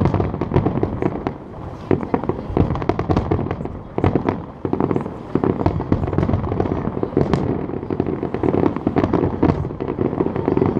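Fireworks display: a dense, continuous barrage of bangs and crackles, many per second.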